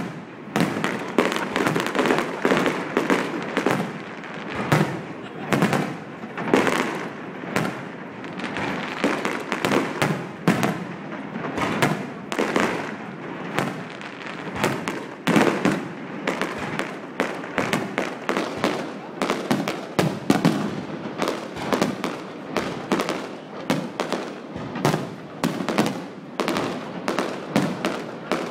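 Fireworks display: aerial shells bursting one after another, several bangs a second with no break.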